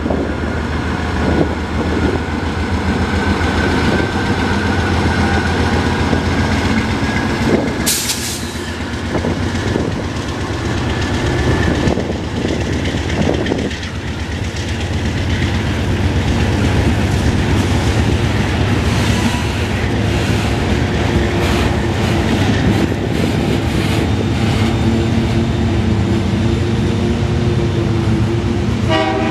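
GE C44-9W diesel-electric locomotive running under power as it pulls a freight train away, followed by freight cars rolling past on the rails. A brief sharp high-pitched sound comes about eight seconds in.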